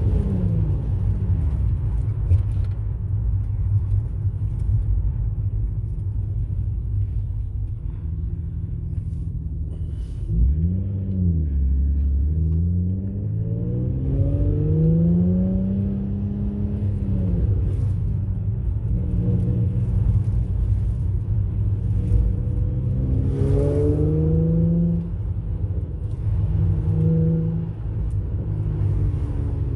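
Infiniti G35 coupe's 3.5-litre V6 exhaust, running through resonated ISR test pipes in place of the catalytic converters, rising and falling in pitch several times as the engine is revved up and eased back.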